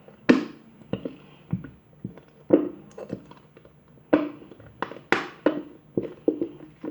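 Irregular taps and thunks of a plastic glue bottle and bowl being handled, about a dozen knocks at uneven spacing.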